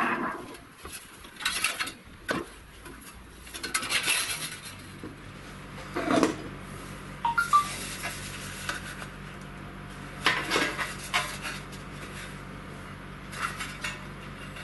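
Thin galvanized sheet-steel panels clanking and rattling as they are handled and fitted together, a string of irregular metallic clatters with a brief ringing ping about halfway through. A faint steady low hum runs underneath from about a third of the way in.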